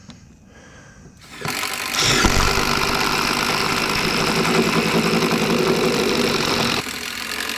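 A motor speeding up about a second in, running loud and steady for about five seconds, then dropping to a lower level near the end.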